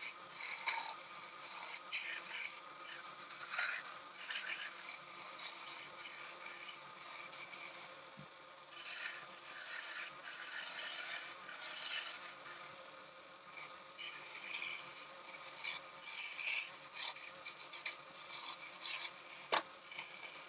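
Turning tool cutting a spinning pine blank on a small benchtop wood lathe: a scraping hiss in short, irregular passes with brief lulls, over the lathe's steady hum.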